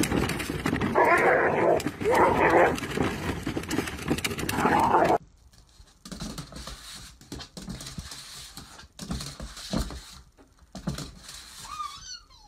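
A wheeled plastic trash bin rolling over gravel, with a dog barking three times over it. The noise then stops suddenly, and a quieter stretch follows with a small dog whining, its high wavering whine near the end.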